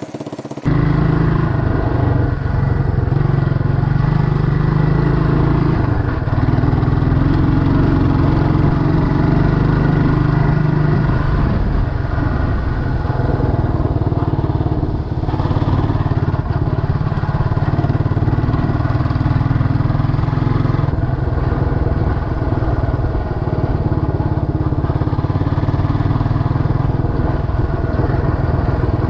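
Scrambler motorcycle engine running while riding a gravel dirt road, coming in suddenly about half a second in. The engine note shifts several times as the throttle and gears change.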